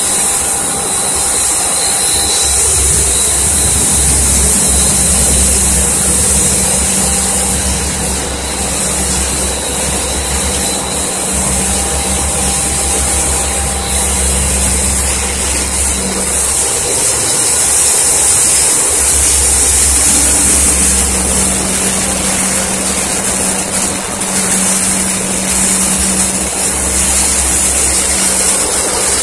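Snack food extrusion line machinery running: a steady din of motor hum under a loud, even high hiss.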